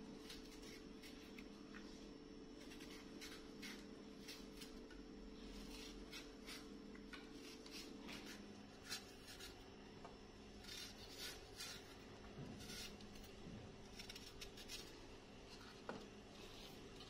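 Kitchen knife peeling and slicing apples: faint, crisp scraping and cutting strokes of the blade through the skin and flesh, irregular and now and then in quick runs, over a faint steady hum.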